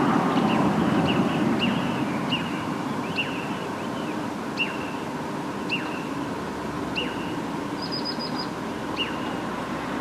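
Small bird chirping: short, sharp notes that drop in pitch, coming about every half second at first and then spacing out to about one a second, over a steady background hiss. A quick high trill near the end.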